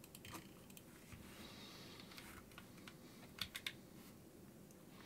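Soft keystroke clicks from a low-profile split keyboard with Kailh Choc Sunset switches: a few scattered taps, then three louder quick clicks about three and a half seconds in.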